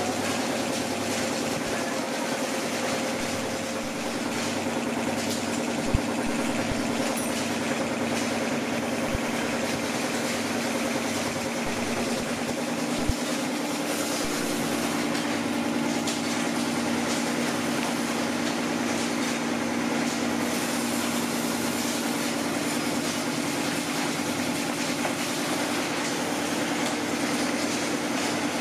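Factory machinery running steadily: an unbroken mechanical hum over a wide noise, with a few sharp knocks, the clearest about six and thirteen seconds in.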